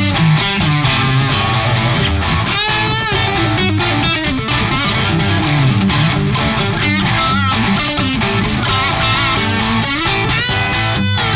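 Electric guitar played through a Kor Oracle distortion pedal: a distorted lead line with string bends and vibrato, played continuously.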